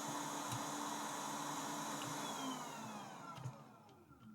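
Small electric blower running with a steady airy hiss and a low hum, then switched off about two and a half seconds in and winding down, its whine falling in pitch as it fades.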